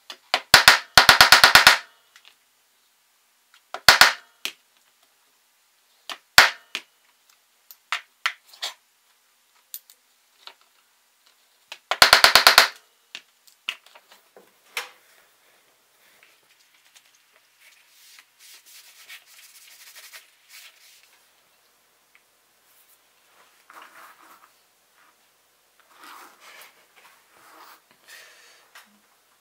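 A hammer striking a metal hand setter to set leather hardware over a stone slab: quick runs of sharp metallic taps about a second long near the start and again about twelve seconds in, with single taps between. Faint rustling and scraping of leather being handled fill the second half.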